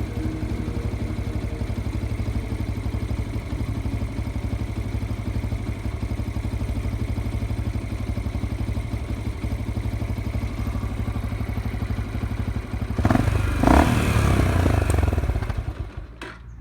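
Yamaha XT 125 X's single-cylinder four-stroke engine idling steadily, then revved briefly about thirteen seconds in. The sound drops away near the end.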